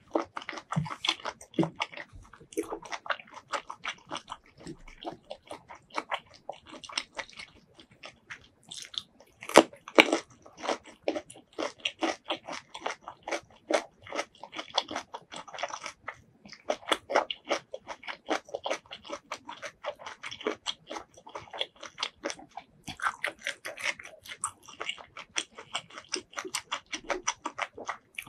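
Close-miked chewing of a mouthful of spicy squid salad: a dense, unbroken run of clicks and smacks, loudest about ten seconds in.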